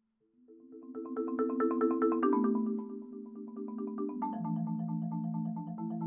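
Marimba playing rolled chords, the mallets striking fast and evenly so the notes sustain. It comes in about half a second after a short hush, swells, and moves to a new chord twice.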